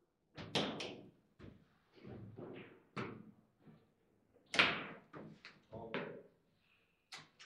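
Foosball table in play: the ball is struck by the figures and rods clack against the table, a series of sharp knocks and clacks with the loudest about four and a half seconds in.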